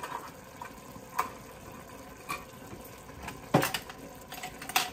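Stew with tinned tomatoes simmering quietly in an Instant Pot on its sauté setting, with a few sharp clicks and knocks of containers being handled; the loudest come about three and a half seconds in and near the end.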